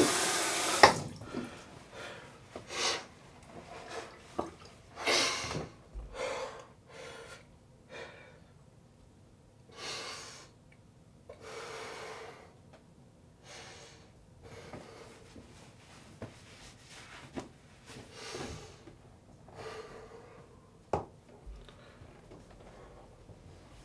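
Tap water running into a bathroom sink, shut off about a second in with a click. Then a man breathing hard, in and out through nose and mouth, a breath every second or two, slowing and fading toward the end.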